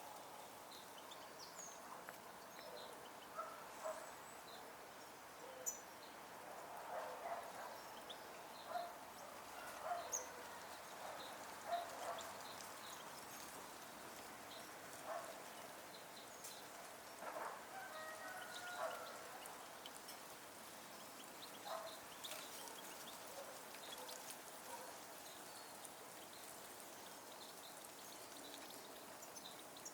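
Scattered short bird calls and chirps, coming singly and in small clusters at irregular moments over a faint steady background.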